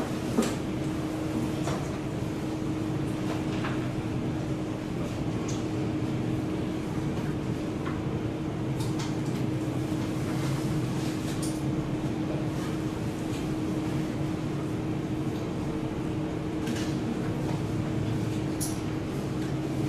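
Steady mechanical hum with a constant low tone, with a few faint light clicks.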